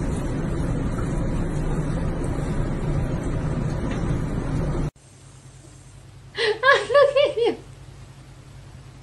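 Steady low rushing noise that cuts off abruptly about five seconds in. A moment later a person laughs, a quick run of about six high, rising-and-falling bursts.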